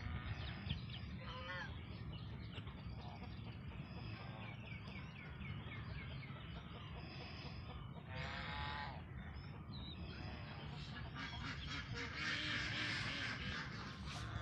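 A free-range flock of chickens and ducks calling: a series of short, repeated peeps from young birds, and one louder, drawn-out call about eight seconds in. A rougher noise runs near the end.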